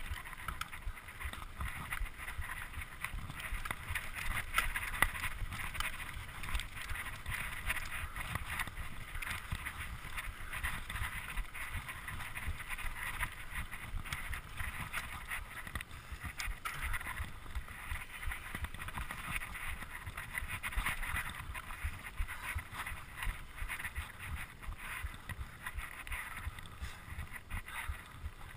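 Mountain bike ridden fast along a dirt trail: tyres on dirt and the bike rattling over bumps, with wind buffeting the rider-mounted camera's microphone.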